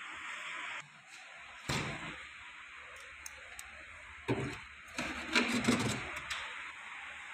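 A refrigerator door being opened, with a few sharp knocks and clunks as things inside are handled, the loudest about four to six seconds in.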